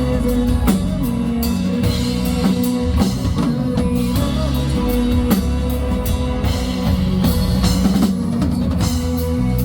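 Live band playing an instrumental passage: full drum kit with bass drum and cymbals, electric bass and guitar, with no singing.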